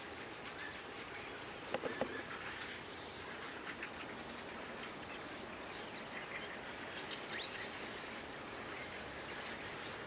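Faint, scattered chirps of small songbirds over a steady outdoor background hiss, with a short louder sound about two seconds in.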